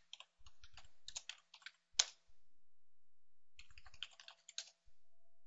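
Typing on a computer keyboard: a quick run of keystrokes, then one louder keystroke about two seconds in, then another short run of keystrokes near the four-second mark. The keys are typing a terminal command and then a password.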